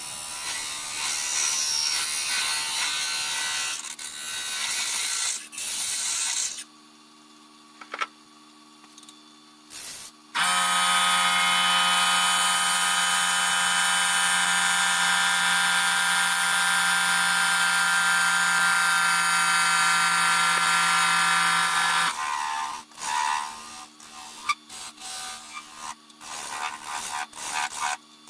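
Black walnut sphere being turned on a wood lathe, with a tool cutting and scraping the spinning wood in spells over a low machine hum. In the middle, a loud, steady buzzing tone with many overtones runs for about twelve seconds before the intermittent cutting resumes.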